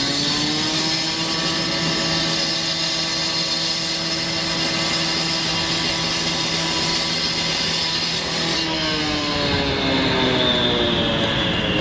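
Diesel engine of a heavy road-construction machine running steadily with a high whine over it; the whine cuts off suddenly about eight and a half seconds in and the engine note then falls in pitch as it slows.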